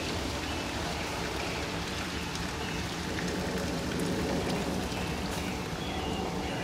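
Hot water pouring steadily from a kettle into the water pan of a Masterbuilt electric smoker, splashing.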